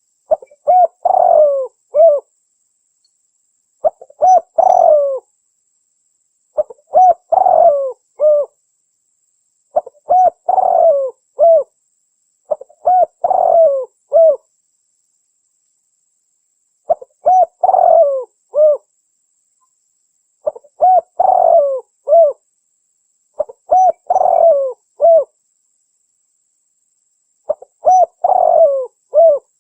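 Spotted dove cooing: nine phrases, one about every three seconds, each a short run of low coos ending in a separate last note.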